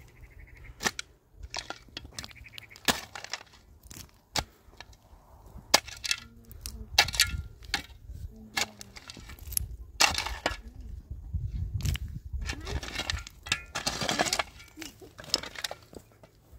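A long, irregular series of sharp cracks and knocks, with a denser, louder crackling stretch between about ten and fourteen seconds in.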